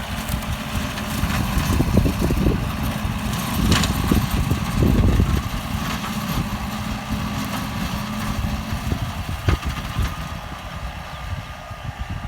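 Kubota M9540 tractor's four-cylinder diesel engine running under load as it works a rotary tiller through a pineapple field, with uneven low rumbling.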